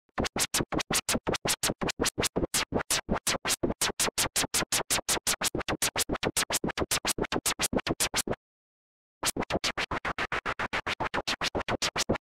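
Gated, filtered white noise from an Ableton Live Operator synth patch, chopped into a fast, even rhythm of short pulses that sound like record scratching. It stops for under a second about eight seconds in, then starts again.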